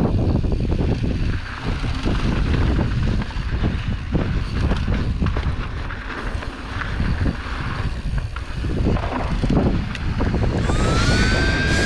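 Wind rushing over the microphone of a camera riding on a mountain bike during a fast descent of a dry dirt trail, with tyre noise and frequent small knocks and rattles from the bike over bumps.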